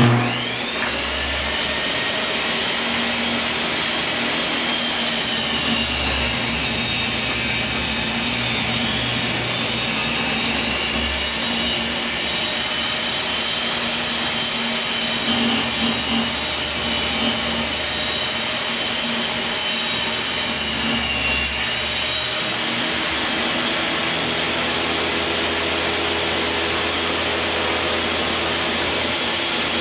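Skilsaw portable table saw running steadily with a loud motor whine while ripping strips of glued wood panel lengthwise down the middle; the whine dips in pitch through the middle of the stretch and recovers a little after 20 seconds in.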